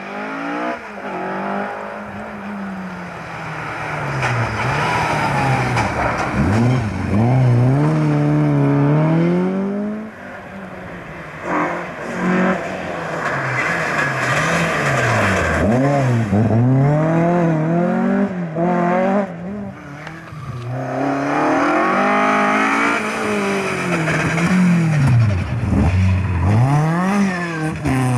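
Rally cars' engines, Ford Escorts among them, revving hard as the cars pass one after another: the pitch climbs, drops sharply at each gear change or lift-off, and climbs again.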